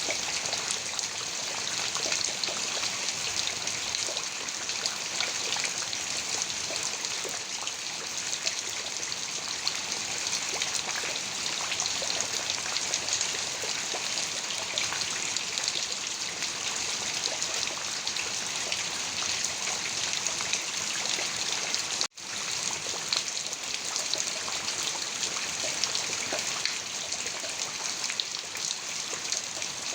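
Heavy rain falling steadily, a dense hiss of many individual drops. The sound cuts out for an instant about two-thirds of the way through, then resumes unchanged.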